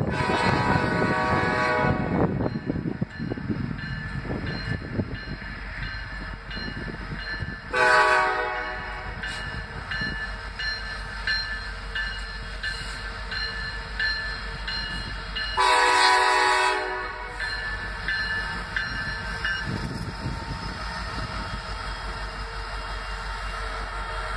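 Norfolk Southern diesel locomotive's air horn sounding three blasts: one ending about two seconds in, one about eight seconds in, and one about sixteen seconds in, each a loud chord. Between the blasts the diesel engines of the slow-moving train run with a low rumble that grows as the locomotives come close.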